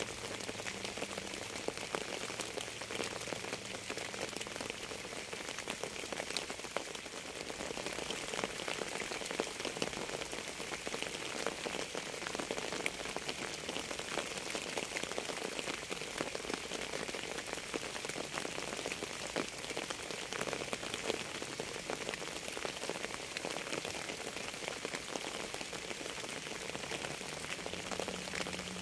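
Steady rain falling on a surface, a dense mass of small drop impacts at an even level throughout.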